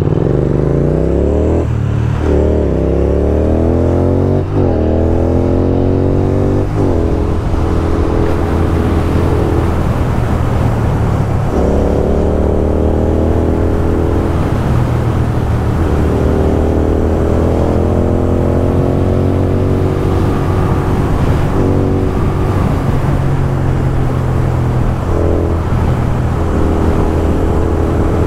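Royal Enfield Continental GT 650 parallel-twin with a loud aftermarket exhaust, pulling away and accelerating up through the gears. Its engine note climbs and drops with quick shifts about two, four and a half and seven seconds in. After that it runs at a steadier pace with a few more rises and shifts.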